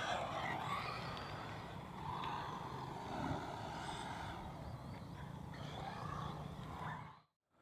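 Radio-controlled cars running on a dirt track, a faint motor whine over a steady low hum; the sound cuts out briefly near the end.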